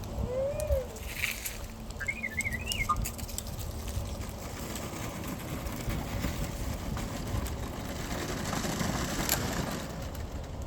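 R2-D2 droid sound effects from the replica's speaker: a short run of rising-and-falling whistles and warbling chirps in the first three seconds. Then a steady mechanical whir, growing a little louder near the end, from the remote-controlled droid's drive motors.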